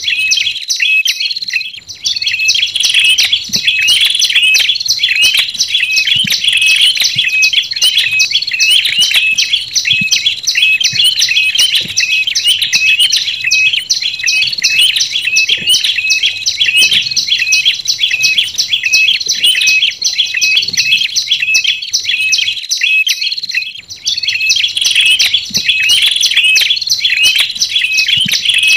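Bird-lure recording of tailorbird calls, prenjak lumut combined with red-headed prenjak: loud, high-pitched chirps repeated rapidly and almost without pause, dipping briefly twice.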